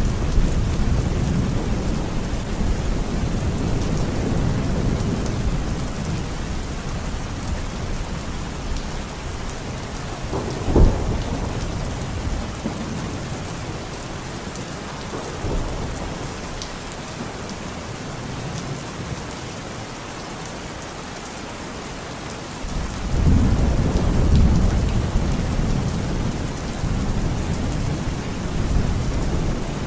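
Heavy rain pouring steadily, with thunder. A low rumble at the start eases off, a sharp thunderclap cracks about eleven seconds in, and a louder rolling rumble builds about two-thirds of the way through.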